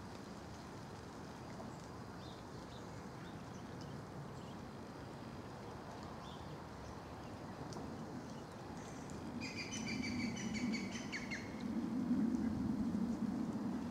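Outdoor birds chirping faintly, with a louder trilling burst of song about two-thirds of the way through, over a steady low rumble that grows louder near the end.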